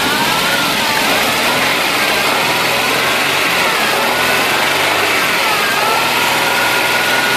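Volkswagen AP four-cylinder engine with a Solex 3E carburettor running at idle, its speed dipping and rising several times. It is running very badly, rough enough to shake the whole car.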